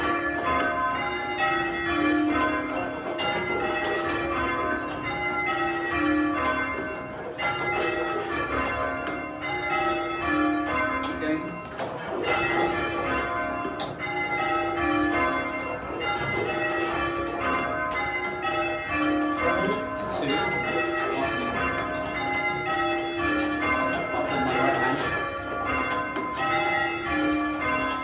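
A ring of church tower bells being rung in changes by a band of ringers, from the small treble down to a tenor bell of about half a ton. The strikes follow one another in quick succession without a pause, their tones overlapping and ringing on.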